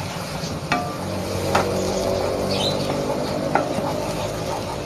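Spatula stirring and scraping a thick flower-and-garlic paste around a nonstick pan, with a faint sizzle of the mustard oil as the raw paste is dried out. The spatula knocks sharply against the pan a few times.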